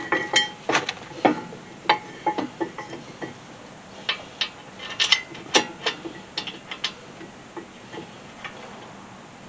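Irregular metallic clicks and clinks as a steel brake caliper bracket is fitted and its bolts worked in with hand tools, a few strikes ringing briefly.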